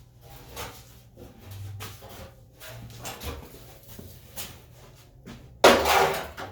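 Handling noises: scattered light knocks and rustles, then a sudden loud clatter near the end.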